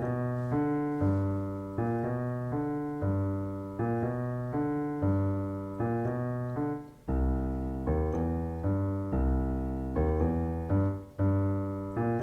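Piano playing a blues walking bass line, one low note after another in a dotted, long-short rhythm, with deeper bass notes in the second half.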